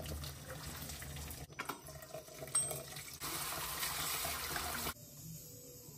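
Water running from a kitchen tap into a plastic colander as hands rinse something in it, with a couple of light knocks about a second and a half in. The flow gets louder about three seconds in, then stops abruptly near the end.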